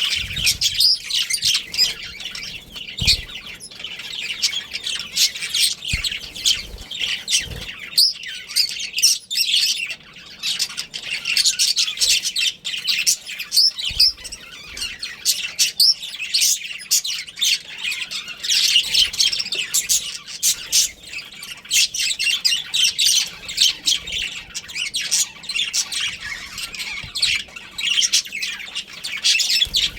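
A flock of small caged parrots chattering continuously: a dense, overlapping mix of quick high chirps and squawks.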